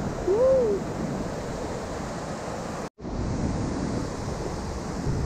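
Rushing water of a mountain waterfall and river in full spate, a steady noise mixed with wind on the microphone. A short rising-and-falling tone comes about half a second in. The sound drops out for an instant just before three seconds, at a cut, and then the steady rush returns.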